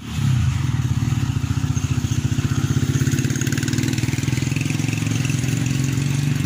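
Hyundai Accent's gasoline engine idling steadily, with a fast even pulse.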